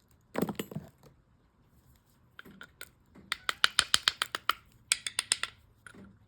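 Stone slabs for flintknapping clinking and knocking against each other as they are handled: a couple of knocks about half a second in, then a fast run of sharp, glassy clicks in the middle.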